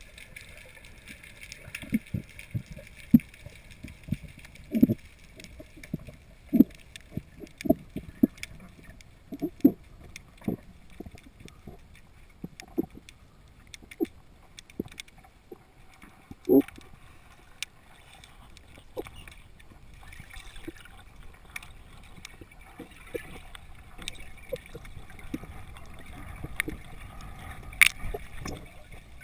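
Underwater sound heard through a camera's waterproof housing: irregular dull low knocks and gurgles over a faint steady hiss, with a sharp click near the end.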